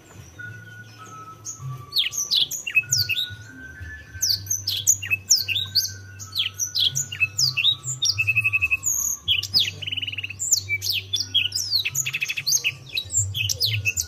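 Canary singing a fast, varied song of quick downward-sweeping whistles, with rolled trills near the middle and a buzzy trill near the end; it gets going about two seconds in. A low hum runs underneath.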